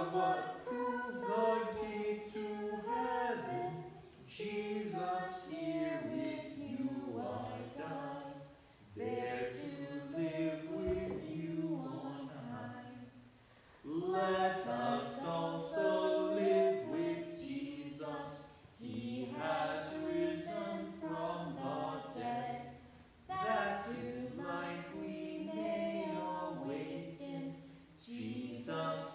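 A hymn sung unaccompanied, in phrases of a few seconds with short pauses for breath between them.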